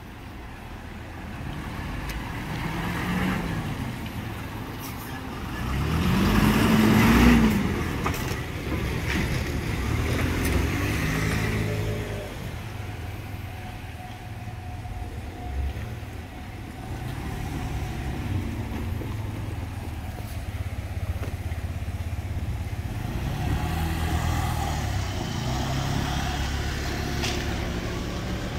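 Road traffic: motor vehicles passing one after another, the loudest going by about six to seven seconds in with its engine note rising.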